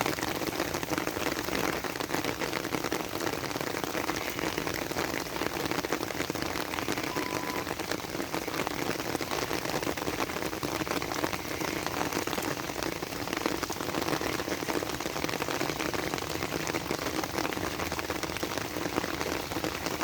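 Heavy rain pouring steadily onto hard surfaces, a dense even patter of drops without letup.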